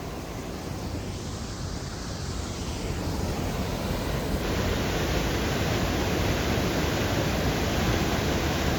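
Fast-flowing mountain creek rushing, a steady roar of water that grows louder and fuller about halfway through.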